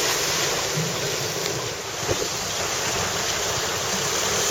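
Storm wind buffeting the microphone over the steady rush of rough surf.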